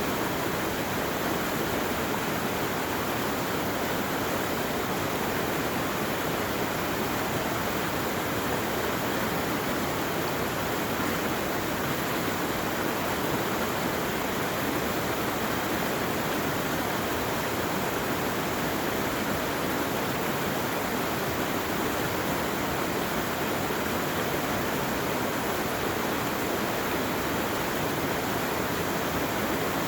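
Steady rushing of fast-running water, even and unbroken.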